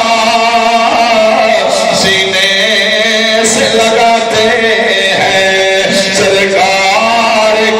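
A man's voice singing verse in a slow melodic chant into a microphone, holding long notes and sliding between them.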